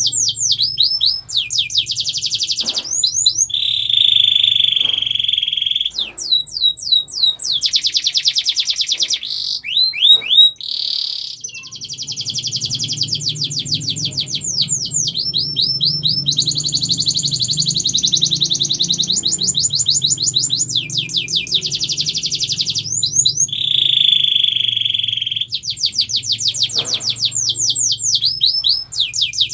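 Domestic canary singing a long, unbroken song of fast trills and rolls: rapid series of repeated notes, some swept and some held at one pitch, over a low steady hum.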